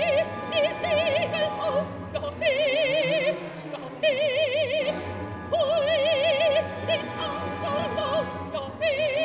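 An operatic soprano singing with orchestra: she holds high notes with a wide vibrato in short, repeated phrases broken by brief pauses, over sustained orchestral accompaniment.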